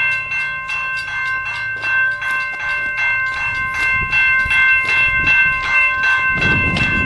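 Railroad crossing warning bell ringing in rapid, even strokes as coal hopper cars roll past on the rails. A low rumble swells near the end.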